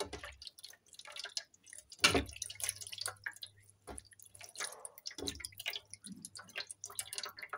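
Hands splashing and rubbing in shallow water in a plate, rinsing off foamy face wash: irregular drips and splashes, with a couple of louder thumps, the loudest about two seconds in.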